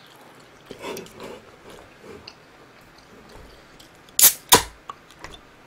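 Aluminium soda can being opened: two sharp cracks from the pull tab, about a third of a second apart, a little past the middle.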